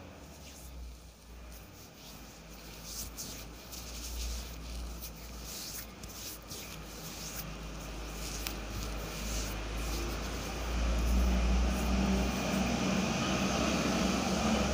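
Soft rubbing and rustling of fingers spreading liquid foundation over the face and neck, picked up by a clip-on lapel microphone, over a low steady hum. A broad rumbling noise swells louder through the second half and is loudest near the end.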